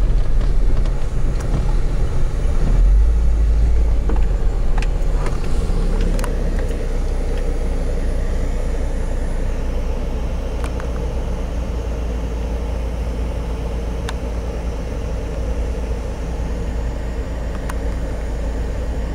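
Cabin noise of a vehicle driving a dirt road: a steady low rumble of engine and tyres on gravel, with a few scattered sharp clicks and rattles. It is a little louder in the first several seconds, then eases slightly.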